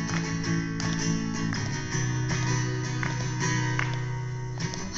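Background music: a strummed acoustic guitar intro to a pop song.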